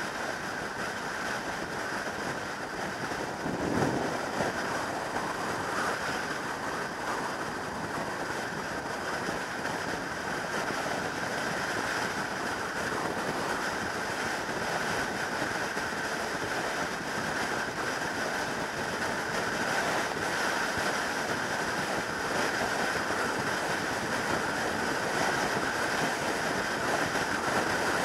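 Steady wind rush and road noise of a 2003 Yamaha YZF600R Thundercat sport bike cruising at motorway speed, with a brief louder whoosh about four seconds in.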